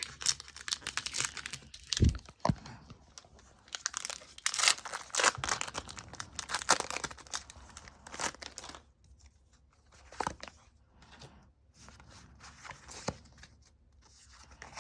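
Foil Pokémon booster pack being torn open and crinkled, with dense crackling for the first nine seconds or so, then softer, sparser rustles and clicks as the cards are handled.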